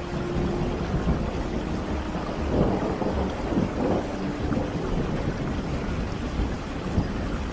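Steady rain with a low rumble of thunder, the rumble a little stronger around the middle.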